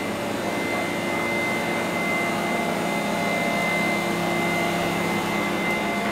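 Steady machine drone with a thin, constant high whine, from the shop's refrigeration and air-handling equipment.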